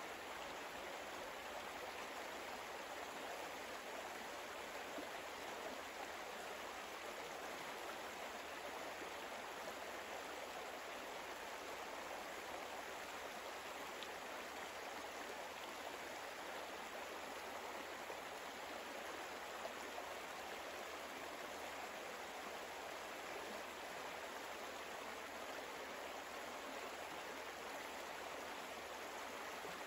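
Steady, soft sound of running water, like a small stream, unchanging throughout.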